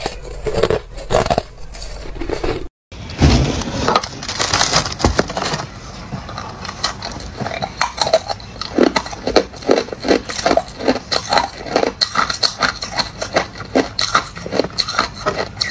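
Ice being crunched between the teeth, close to the microphone: crushed ice first, then after a brief break about three seconds in, hard ice chunks chewed in a steady run of sharp crunches, about two to three a second.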